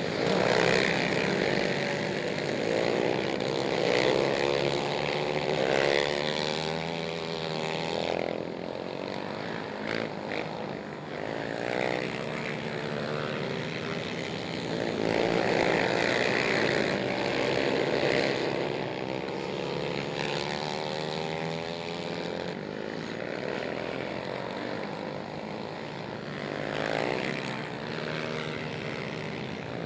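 Several racing quad ATV engines revving hard. Their overlapping pitches keep rising and falling as the quads accelerate and lift off around the dirt oval.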